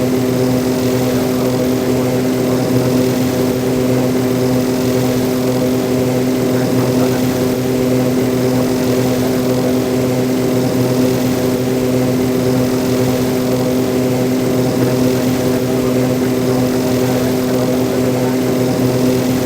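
ATR-72 turboprop's propellers and engines droning at a steady, unchanging pitch: an even, loud hum built on a low tone.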